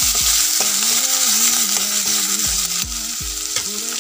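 Chopped onion, ginger-garlic paste and turmeric sizzling in hot oil in a kadai as a spatula stirs and scrapes them. A steady frying hiss, with a few short knocks of the spatula against the pan.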